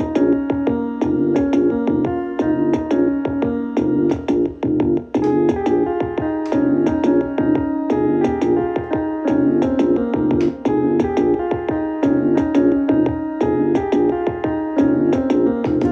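Keyboard music: a piano-like instrument playing a quick run of struck notes, several a second, without a break.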